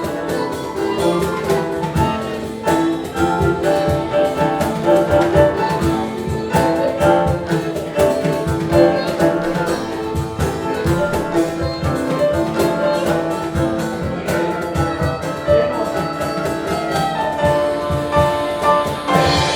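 Live instrumental world music from a small band: a sustained melody line over a drum kit keeping a busy, steady beat.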